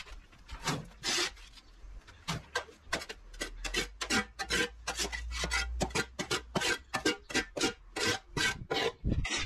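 Flat-blade shovel scraping cut grass and soil off hard ground in quick repeated strokes, about three a second.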